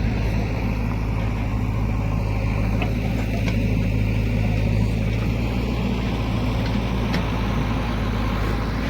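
Heavy diesel engine running steadily at a low, even speed, with a deep hum and no change in revs.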